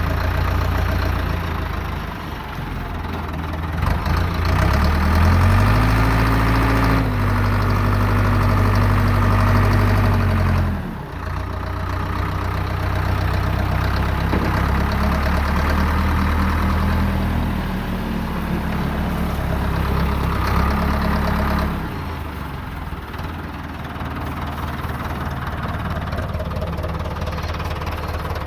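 Ford backhoe's rebuilt engine running steadily. It revs up about four seconds in, drops back suddenly near eleven seconds, comes up again, and settles to a lower, quieter speed a little past twenty seconds.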